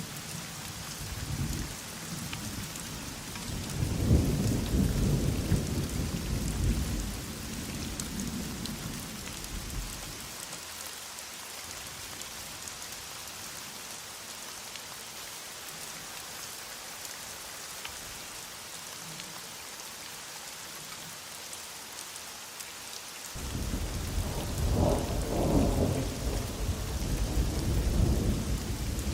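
Heavy rain falling steadily, with rolling thunder: a long low rumble in the first ten seconds, then another that starts abruptly about three quarters of the way through and runs on.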